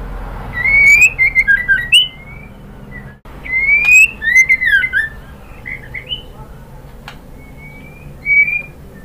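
White-rumped shama (murai batu) calling, presented as a female calling a male, the kind of call used as a lure to make a male sing. It gives loud rising whistles, each followed by a quick jumble of short notes, in three main bursts with short gaps, and a brief phrase near the end. A sharp click comes about seven seconds in.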